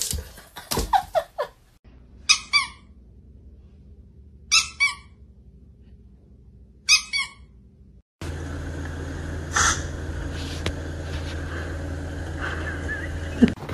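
A small chihuahua-type dog yipping three times, about two seconds apart, each yip a quick double note falling in pitch. Later a steady low hum takes over.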